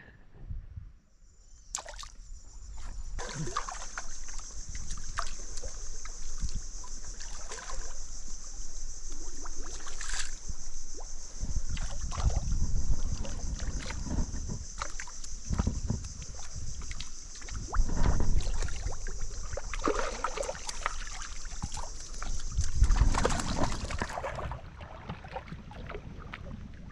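Water sloshing and knocking, with irregular low bumps, under a steady high-pitched insect chorus that stops a few seconds before the end.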